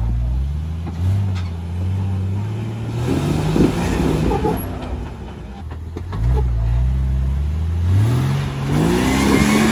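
Lifted Jeep Cherokee's engine revving in repeated surges, its pitch climbing and dropping with each push of the throttle as it crawls up a rock ledge. A sharp knock comes about three and a half seconds in.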